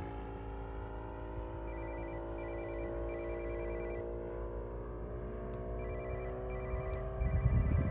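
A radio-controlled scale warbird's O.S. GF40 four-stroke gasoline engine and propeller droning steadily in flight. Over it comes a high electronic beeping in short repeated bursts, twice, and a low rumble rises near the end.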